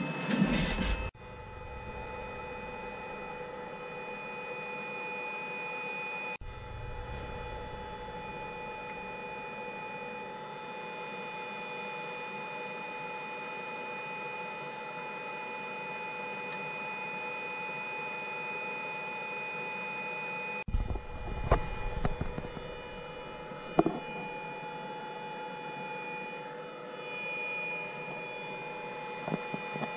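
Hot-air soldering gun on a BGA rework station blowing steadily, a constant whining drone of its fan, while the laptop motherboard preheats for a GPU chip replacement. A few short knocks of handling about two-thirds of the way in.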